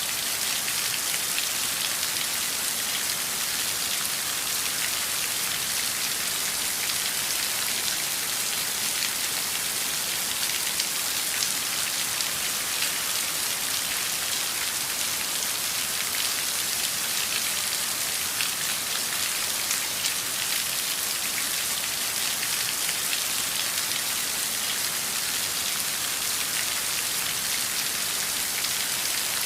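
Steady heavy rain falling on a surface: a dense, even hiss of many small drop patters that keeps a constant level throughout.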